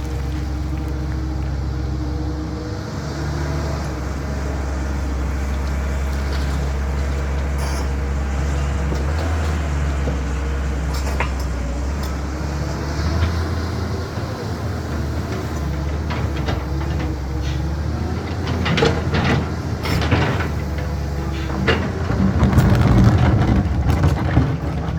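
CAT 320 hydraulic excavator at work: its diesel engine runs steadily throughout, and in the last several seconds come a series of clanks and rattling scrapes, loudest near the end.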